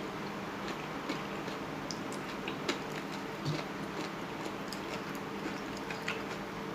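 Someone eating: scattered small, irregular clicks and mouth noises of chewing, over a steady low hum.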